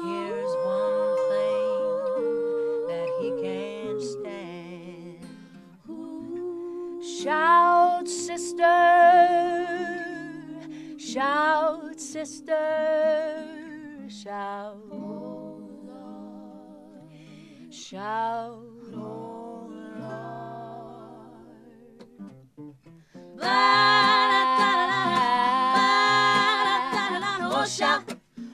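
Female vocal group singing wordless close harmony, humming and scooping up into notes over an unplugged acoustic guitar. Near the end the voices swell into a loud, full held chord.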